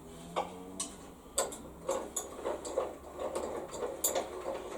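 Sharp metal clicks and knocks at irregular spacing, some ringing briefly, from tools and steel parts being handled while a bandsaw's vice is taken apart.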